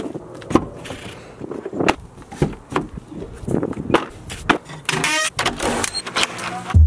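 Car and house doors being handled: a quick run of latch clicks, handle clunks and knocks, a short rasp about five seconds in, and a heavy thump like a door shutting just before the end.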